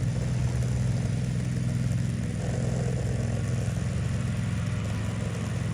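Go-kart's small single-cylinder engine running at a steady speed on a newly installed carburetor.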